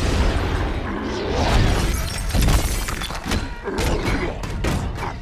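Glass shattering and debris crashing as huge bodies smash through a building, with heavy thuds and a run of sharp impacts near the end.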